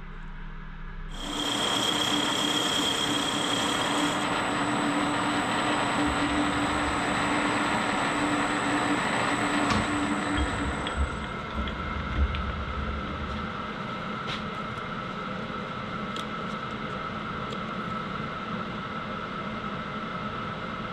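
Warco 280V metal-turning lathe starting up about a second in and running steadily with a motor whine, turning the rim of a model traction-engine wheel down to size. Its tone changes a little around four and again around eleven seconds in.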